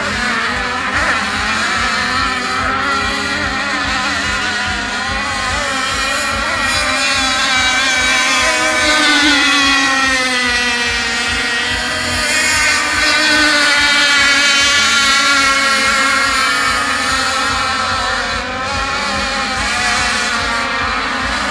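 Several 26 cc two-stroke petrol engines of radio-controlled racing catamaran/tunnel boats running flat out, a high engine whine whose pitch rises and falls as the boats run the course.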